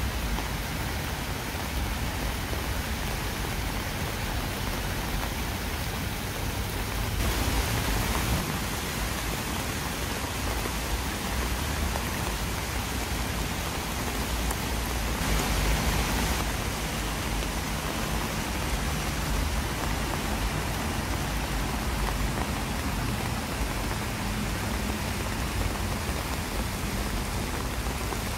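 Heavy rain pouring down steadily, swelling louder twice, about seven and fifteen seconds in.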